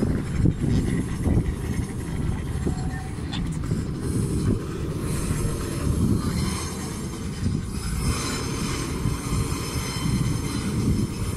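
Freight wagons rolling slowly across a street-level crossing: a steady low rumble, with high-pitched wheel squeal setting in about halfway through as the wagons follow the curving track.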